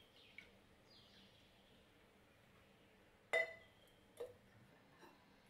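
A glass tumbler clinking sharply against a hard surface, with a short ring, about three seconds in, followed by a lighter knock about a second later and a faint tap after that.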